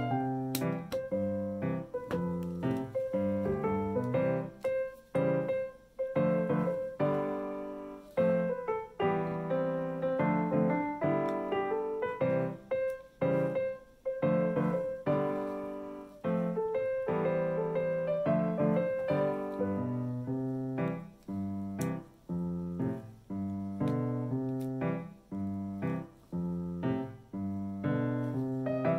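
Background piano music: a light melody of many short notes with a steady rhythm.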